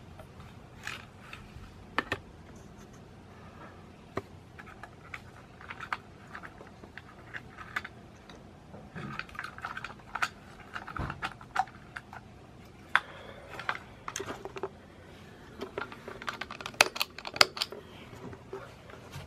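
Irregular clicks and taps from a vintage F6T5 fluorescent strip-light fixture being handled and started with its push-button switch and glow starter, with a quick run of sharp clicks near the end. A faint steady low hum runs underneath.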